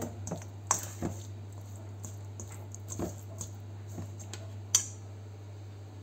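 Hand working marinade into raw lamb rib chops in a stainless steel bowl: irregular squishes and clicks of the meat and bones against the bowl, with two sharp knocks, one a little under a second in and one near five seconds.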